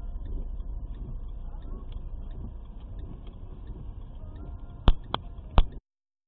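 Low, steady rumble of a car's engine and road noise inside the cabin as the car slows on a snowy road. Near the end come three sharp clicks, and then the sound cuts off abruptly.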